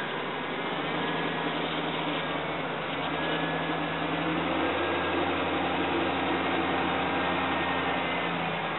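Steady mechanical hum from a running motor, with a low drone whose pitch shifts slightly a few times.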